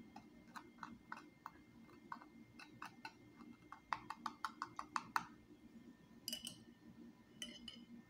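Metal spoon scraping and tapping over crisp microwave-toasted whole wheat bread as yogurt is spread: a run of light clicks, quickening about four seconds in, then a couple of ringing clinks near the end.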